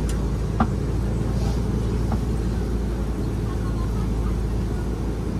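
Open-sided safari ride truck driving along a rough dirt track, a steady low engine and road rumble with a couple of light knocks or rattles, about half a second in and about two seconds in.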